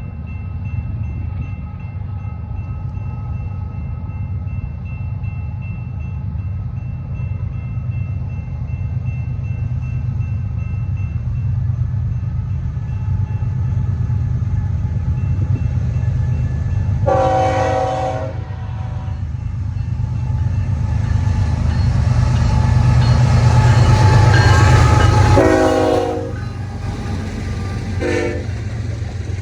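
Freight train's diesel locomotives running past, a heavy steady rumble that builds to its loudest and then drops off suddenly as the engines go by. The locomotive air horn sounds a long blast past the middle, then two shorter blasts near the end.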